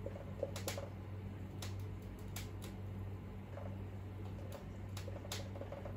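Felt-tip marker writing on a whiteboard: faint scratches and light taps of the tip, a handful of short strokes, over a steady low hum.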